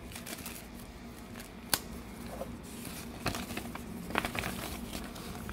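Thin paper and tissue wrapping rustling and crinkling as a small folded instruction leaflet is pulled out and handled, with one sharp tap a little under two seconds in and a few louder crackles over the second half.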